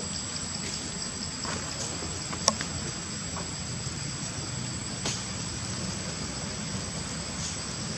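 Steady outdoor background hiss with a constant high thin tone and a fast faint pulsing under it, broken by two sharp clicks about two and a half seconds apart.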